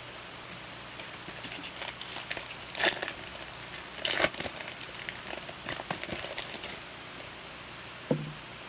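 Trading cards and their packaging being handled, an irregular run of rustling, crinkling and light clicks as cards are slid and flipped.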